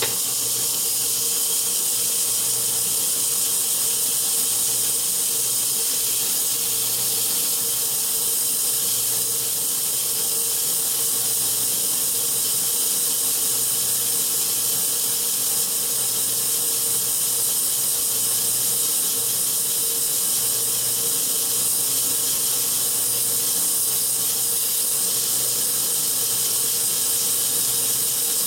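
Sandpaper held against the inner braking surface of a brake drum spinning in a lathe: a steady hiss over a low, even hum. The 120-grit paper is knocking down the drum's high spots so the brake shoes bed in better.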